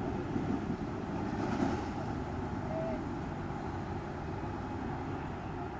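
Steady low rumble of road traffic, with one vehicle swelling louder about a second and a half in.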